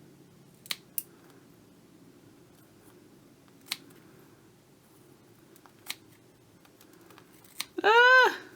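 Scissors snipping into a rubbery squishy stress-ball toy: five sharp separate clicks spread over several seconds. Near the end, the loudest sound is a woman's short voiced exclamation, rising then falling in pitch.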